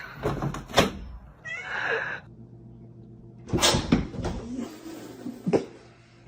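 A cat meowing: one short call, falling in pitch, about two seconds in, among a few knocks and thumps.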